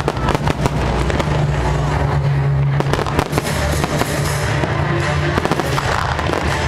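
Fireworks display with many shells bursting in quick succession, sharp bangs and crackles, over music with steady low bass notes.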